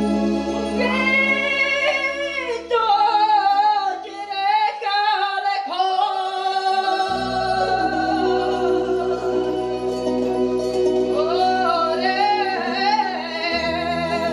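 A woman sings a slow, ornamented melody with vibrato into a microphone, over held electronic keyboard chords that change about halfway through and again near the end.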